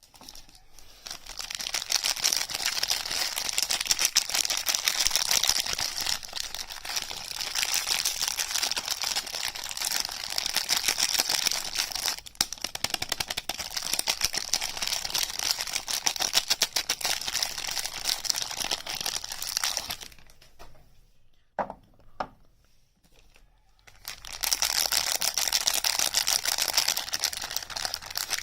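Soap packaging being unwrapped by hand, with continuous crinkling and tearing. It pauses for a few seconds about two-thirds of the way through, with a couple of light taps, then starts again.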